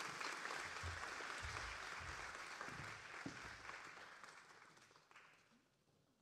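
Small seated audience applauding, steady at first, then dying away over the last two seconds.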